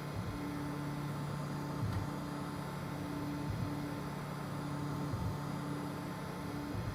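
FDM 3D printer at work: its stepper motors hum in steady low tones that stop, start and change pitch with each move, with short glides between moves, over the steady whir of its cooling fans.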